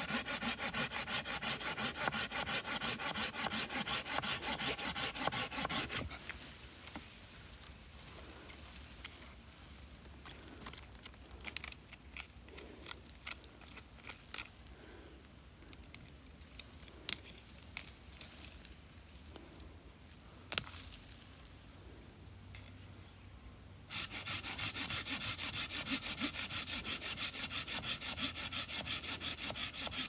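Hand saw cutting through the woody stem of a Sageretia (sparrow plum) shrub near its base, in rapid back-and-forth strokes. The sawing stops about six seconds in and gives way to a quieter stretch of light rustling with a few sharp clicks and snaps, then resumes about 24 seconds in.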